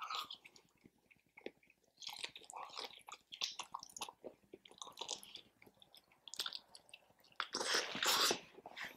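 Close-miked chewing and biting into chicken wings: irregular wet, smacking mouth sounds, with a louder noisy burst near the end.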